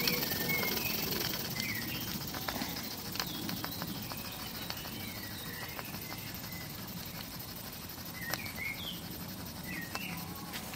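Birds chirping in short calls, over a low background hiss and faint scattered ticks from a small Stuart ST oscillating model steam engine running on steam.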